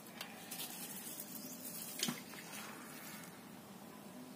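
Faint clicks and ticking of a fishing rod and reel during a cast, with one sharper click about two seconds in.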